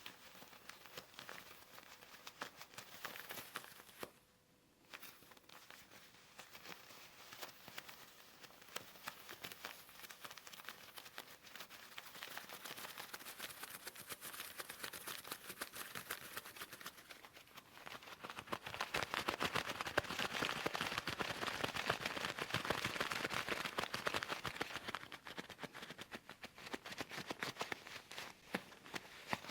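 Leather gloves being rubbed and flexed close to the microphone, a steady fine crackling and creaking of leather. It stops briefly about four seconds in and grows louder and denser after about two-thirds of the way through.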